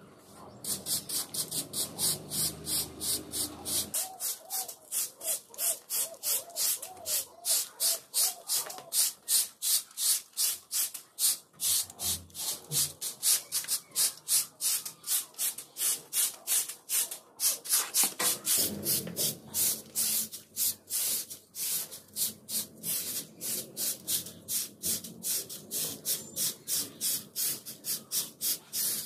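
A long-bristled hand broom sweeping a concrete floor in quick, even strokes, about three a second.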